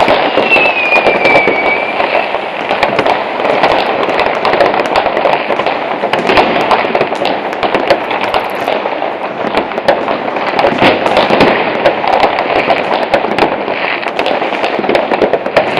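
Many fireworks and firecrackers going off all around in a dense, continuous barrage of overlapping bangs and crackles. In the first two seconds a firework's whistle falls slightly in pitch.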